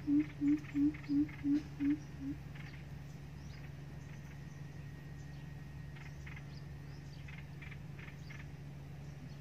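A coucal (bìm bịp) giving its deep hooting call, a run of evenly spaced low hoots about three a second that fade and stop about two seconds in. A steady low drone and faint high chirps from small birds or insects continue underneath.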